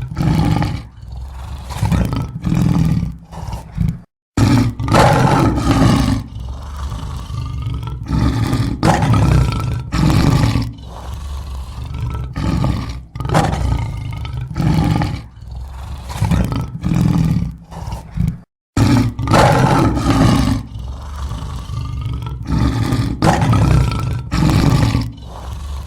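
Lion roaring in a long series of deep roars and shorter grunts. Two brief silent gaps, about four and eighteen seconds in, are where the recording starts over.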